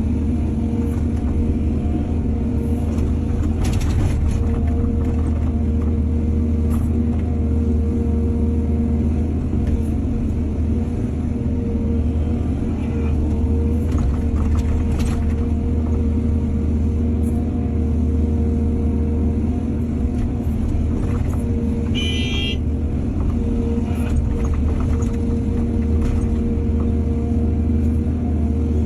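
Excavator's diesel engine running steadily under load, with scattered knocks and scrapes and one short high squeal about three quarters of the way through.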